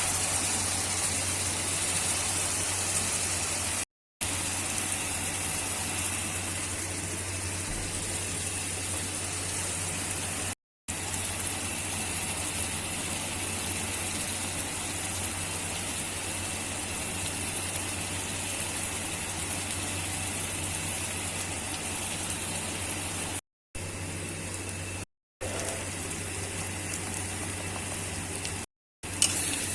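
A steady low hum with a hiss over it, broken by a few short gaps.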